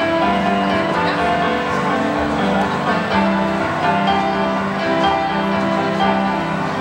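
Gymnastics floor-exercise music playing, a melody in long held notes.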